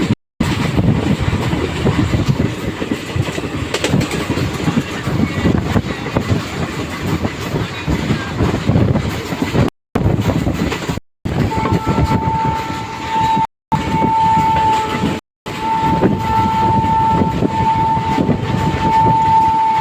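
A moving train's wheels rumbling and clattering over the rails. About halfway through, the train's horn starts sounding one steady note in a series of long blasts that go on to the end. The sound cuts out completely for a moment several times.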